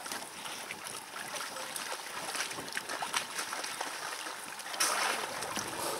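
Icy water sloshing and splashing around a bather dunking under in an ice hole, with scattered small splashes and a louder splash of water about five seconds in.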